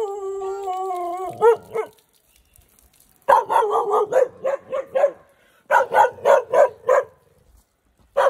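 Puppy barking and yipping in two quick runs of short, high-pitched barks, about four a second.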